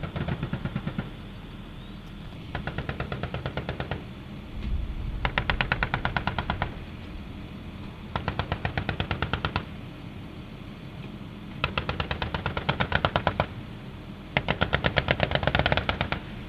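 Vehicle-mounted M2 .50-calibre heavy machine guns firing six long bursts of rapid, evenly spaced shots, each about a second and a half, with short pauses between them.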